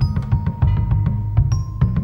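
Background music: quick, short struck notes that ring briefly, over a steady low bass.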